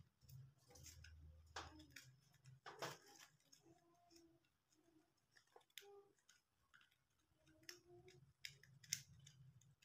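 Faint scattered clicks and a few short, faint squeaks from mice stuck on a glue trap as they struggle against the glue, over a low hum.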